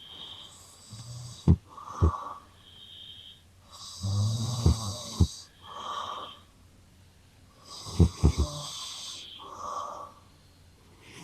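A man and a cat snoring in turn: long, noisy snores about every four seconds, and shorter, higher-pitched wheezy snores in between, with a few sharp clicks alongside the longer snores.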